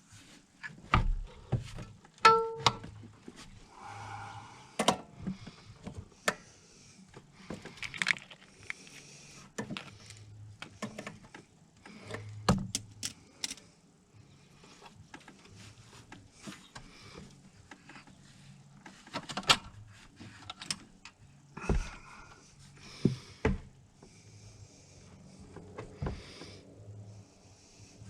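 Hand tools and metal engine parts clinking, tapping and knocking at irregular intervals, with one clink about two seconds in ringing briefly. A faint steady low hum runs underneath.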